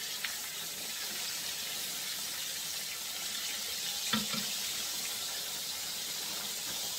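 Floured pork chops frying in hot oil in a cast iron skillet: a steady sizzle, with a sharp click about four seconds in.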